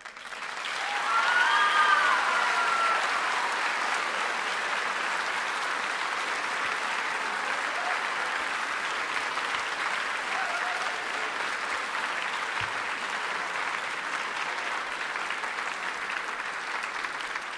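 Large audience applauding at the close of a speech. The applause swells over the first two seconds, with a short cheer from the crowd near the start, then holds steady.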